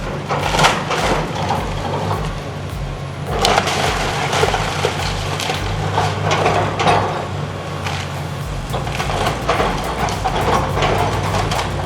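A building being torn down by heavy machinery: repeated, irregular crunching and cracking of breaking wood and debris over a steady low drone.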